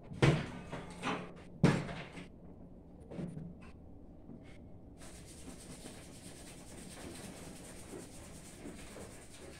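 Two sharp knocks on a workbench, about a second and a half apart near the start, with a few lighter taps after them; then a faint steady hiss.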